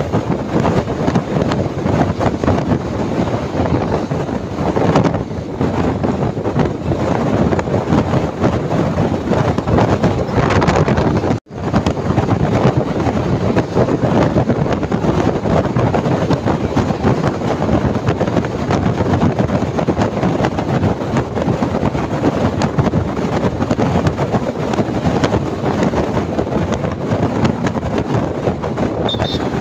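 Steady rush of wind buffeting the microphone at a moving bus's window, mixed with the bus's road and engine noise. The sound cuts out for an instant about a third of the way in.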